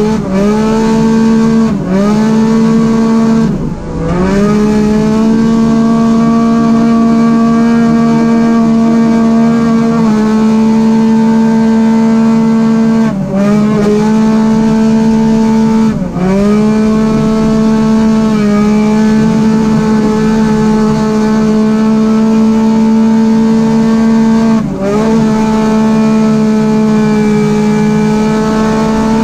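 Arctic Cat Wildcat XX race UTV engine heard from inside the cab, held at high, steady revs under full throttle. Every few seconds the revs dip briefly and climb back up as the driver lifts off and gets back on the throttle.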